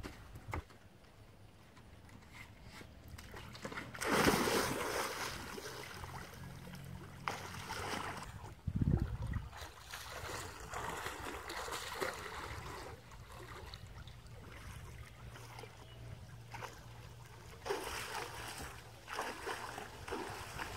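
Water splashing and sloshing in several short bursts, with quieter stretches between.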